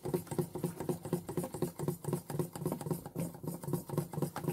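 Thick yeast batter of flour and warm water being beaten in a glass bowl, a wet slapping at about four strokes a second.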